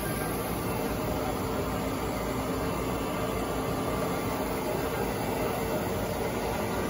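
Steady rushing hum of a flatbed stencil cutter's 1/2 HP vacuum hold-down pump running, unchanging throughout.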